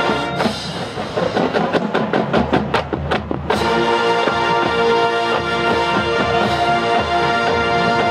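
College marching band playing: the drumline beats out a run of hits for about three seconds, then the brass section comes back in on a loud held chord.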